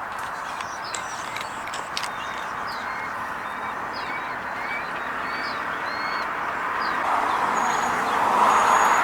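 Small birds chirping in short, scattered notes over a steady rushing background noise, which swells louder in the last two seconds.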